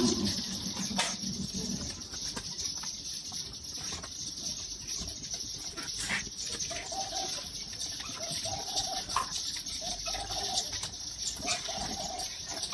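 Quiet hand work on a bicycle frame: a few light clicks and faint handling noises as a taped-on monogram is pried off. In the second half, a string of about seven short calls, roughly one a second, sounds over a steady background hiss.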